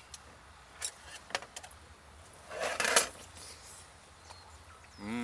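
Spoons clinking on plates while eating: a few sharp light clicks, then one louder, longer clatter about two and a half seconds in.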